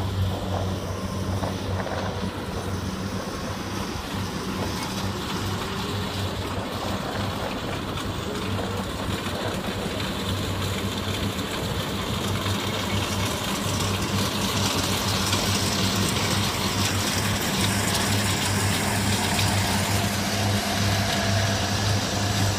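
Kubota rice combine harvester running while it cuts, a steady low engine drone with the clatter of the harvesting gear over it, growing louder in the second half as the machine comes closer.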